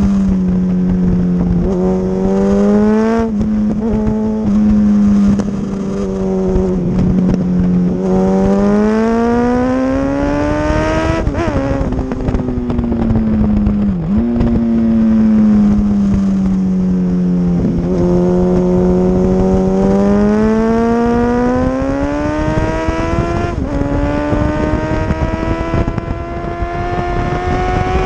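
Motorcycle engine heard on board at speed on a racetrack. Its note climbs slowly and falls away several times, with sudden steps at the gear changes, over a steady rush of wind.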